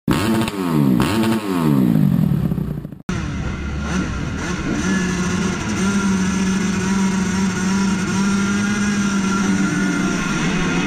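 An engine revving sound falls in pitch twice and cuts off abruptly about three seconds in. Then a gate full of motocross bikes runs on the start line, with the helmet-camera rider's own Honda CRF 250 four-stroke close by. The engines are held at steady revs while waiting for the start gate to drop.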